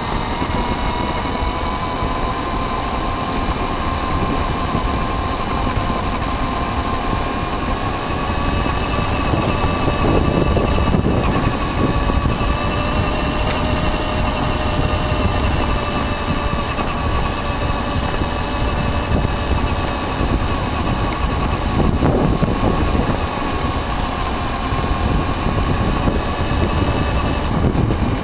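Radio-controlled car's motor heard from a camera mounted on the car, running at speed with a steady high tone that drifts slightly up and down with throttle, over the rumble of its tyres on gravel.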